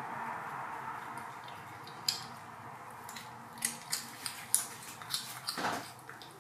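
British Shorthair cat chewing a piece of cucumber: a run of sharp, wet crunches, most of them between about two and six seconds in.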